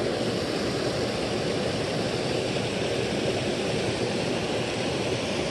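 Small creek cascade: water pouring over a low ledge and rushing steadily.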